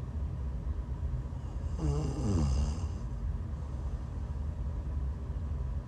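A woman snoring in her sleep while sick. One snore comes about two seconds in, falling in pitch with a breathy hiss, over a steady low rumble.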